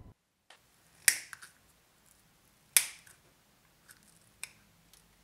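Small hobby nippers snipping through fabric-backed sandpaper: two sharp snips, about a second in and again near three seconds, followed by a few fainter clicks.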